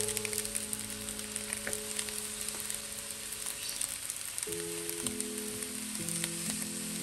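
Fried rice sizzling in a hot non-stick wok: a steady frying hiss with scattered small crackles.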